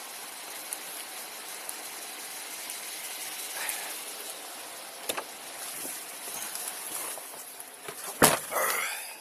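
Steady hiss of rain and wind with a few faint clicks; about eight seconds in, one loud thud of a car door being shut, followed by a brief rustle.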